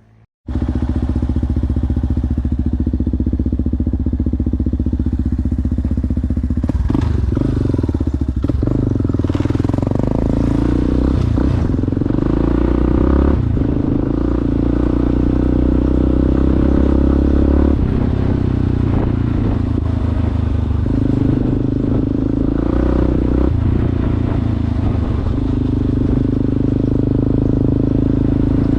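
A Yamaha Ténéré motorcycle's engine breathing through a Coyote aftermarket exhaust while riding off-road. It comes in abruptly just after the start, then runs steadily with the engine note rising and falling as the throttle and gears change. A few clattering knocks come through in the middle stretch.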